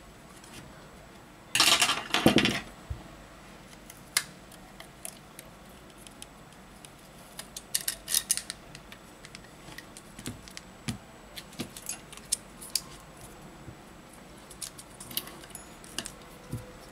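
Hands handling a smartphone's display module and frame: scattered small clicks and light clatter of phone parts and tools, with one louder scraping noise about a second long about one and a half seconds in.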